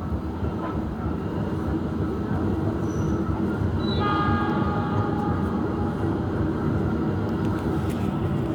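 Passenger train running on the rails, heard from inside the coach as a steady rumble. About four seconds in, a high multi-note ringing tone starts suddenly and fades away over the next couple of seconds.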